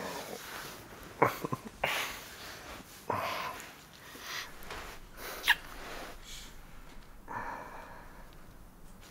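Two people breathing and kissing close to the microphone: a few quick lip smacks about a second in, audible breaths and exhales, and one short sharp kiss-like squeak near the middle.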